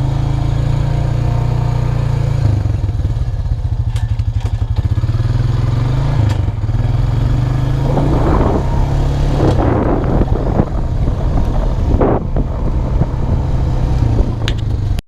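A 2002 Honda Rancher 350 ATV's single-cylinder four-stroke engine running with a steady low drone and small shifts in engine speed, cutting off suddenly at the end.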